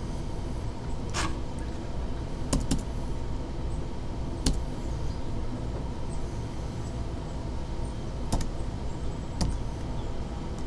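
Background room noise: a steady low hum with a faint steady tone, broken by about six brief sharp clicks or knocks at scattered moments.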